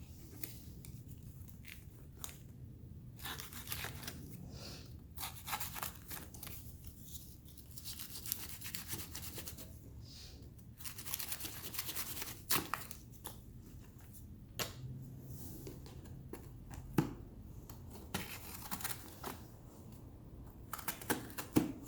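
Packing materials and cardboard in a shipping box being rummaged through, torn and rustled, with scattered scrapes and a few sharp knocks of items being handled.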